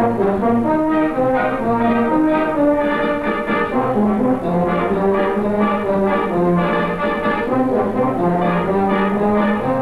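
Wind band playing a continuous melodic passage, brass and clarinets together, the notes moving steadily from one to the next.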